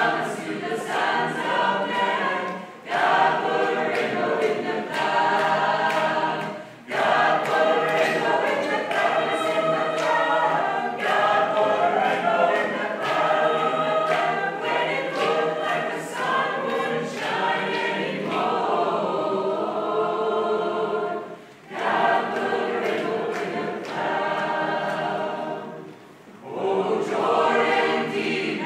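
Mixed choir of men's and women's voices singing together, in sustained phrases with a few short breaks for breath between them.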